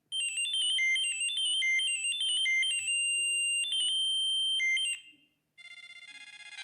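Siemens C75 mobile phone ringtone playing from its loudspeaker: a quick melody of short, high beeping notes with one longer held note near the middle, stopping about five seconds in. After a brief pause the next, fuller-sounding ringtone starts softly.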